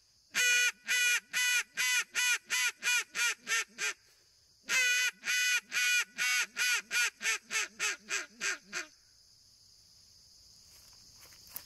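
Gillow Outdoors Weekend Warrior duck call blown in two runs of quacks, each opening with a long, loud quack followed by about a dozen quicker, shorter quacks that fade as they go. After the second run only a steady high insect hum remains.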